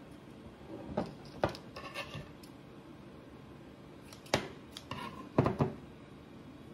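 Scissors snipping and clicking: two clusters of a few sharp clicks, about a second in and again from about four seconds in.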